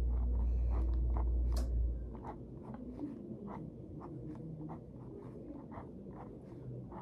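Pen strokes on paper in a spiral grid notebook: short scratchy marks, about three a second, as squares are crossed out. A low rumble runs under them and stops about two seconds in.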